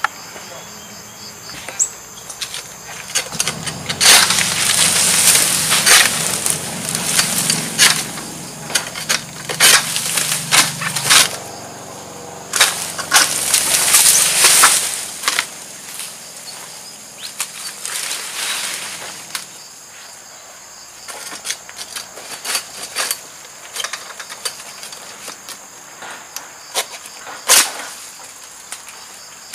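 Oil palm fronds rustling and crackling in three loud spells in the first half, then quieter scattered crackles with one sharp snap near the end. A steady high insect drone runs underneath.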